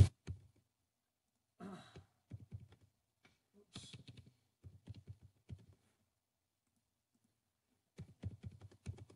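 Faint computer keyboard typing: scattered single keystrokes, with a quick run of several near the end. A soft breath about two seconds in.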